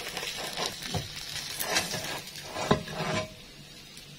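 Frying pan scraping and knocking against a ceramic plate as a pan-fried pizza is slid out onto it, over a faint sizzle from the hot pan. There are several short knocks, the loudest nearly three seconds in, and then the clatter stops.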